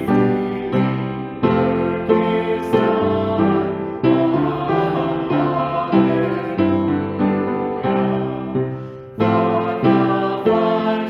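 Piano playing a hymn, its chords struck one after another and each fading before the next.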